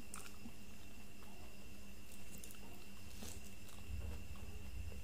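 Quiet mouth sounds of a person eating soft, creamy durian flesh: a few small wet clicks and smacks, with a little low rumble near the end, over a steady faint background hum.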